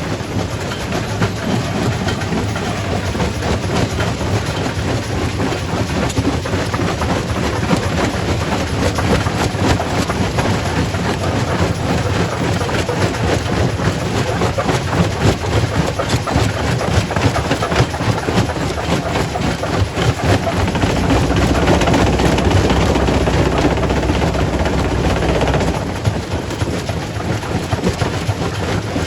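Primary rock crusher in a quarry crushing stone: a steady heavy mechanical rumble with rock clattering and knocking irregularly throughout. About two-thirds of the way in, the rumble grows louder and deeper for several seconds, then drops back.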